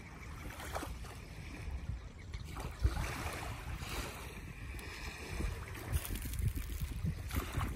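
Wind buffeting the microphone in an uneven low rumble, over the soft wash of small waves lapping on a sandy shore.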